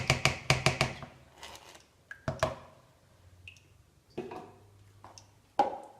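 Kitchen utensils and containers clinking and knocking as they are handled: a quick run of clicks in the first second, then a few separate knocks.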